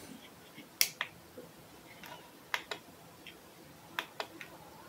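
Small push buttons and the rotary push-knob on a ZK-4KX buck-boost converter's front panel being clicked: three pairs of sharp clicks spread over a few seconds.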